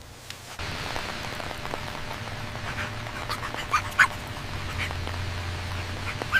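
A dog whimpering and yipping in several short, high cries over a steady hiss like rain.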